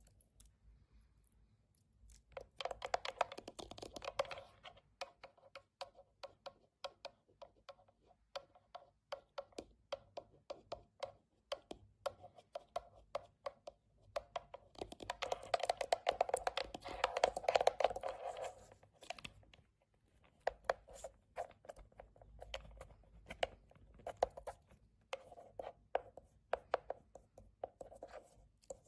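Long rhinestone-studded acrylic nails tapping and scratching on the hard plastic face and buttons of a tattoo power supply: runs of quick clicky taps, with two stretches of fast, dense scratching, a few seconds in and again about halfway through.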